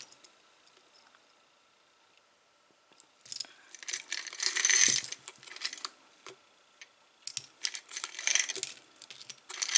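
Small jewelry pieces clinking and rattling against each other as a hand rummages through a jar of mixed jewelry, in two bouts, a few seconds in and again near the end.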